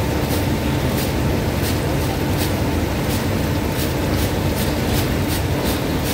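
Wire fry basket of double-fried potatoes being shaken over the deep fryer, rattling in a regular rhythm of about three shakes a second, to drain off the oil so the fries are not too oily. Under it runs a steady sizzle from fries frying in the neighbouring vat.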